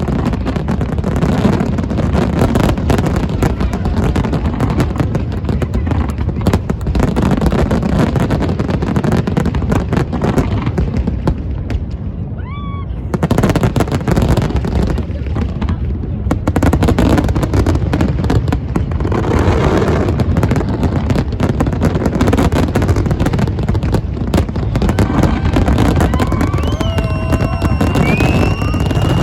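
Aerial fireworks going off in rapid, overlapping succession, a dense run of booms and crackles, easing briefly about halfway through before picking up again. Several high whistles rise and waver near the end.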